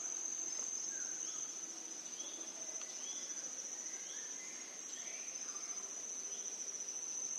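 A steady, shrill insect chorus with short bird-like chirps scattered through it.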